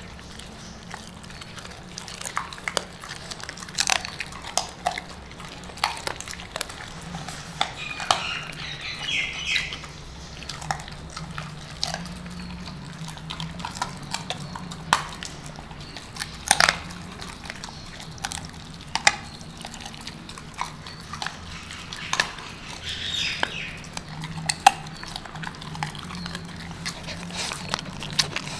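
A Rottweiler chewing chicken feet: irregular sharp crunches as the small bones break, one every second or two.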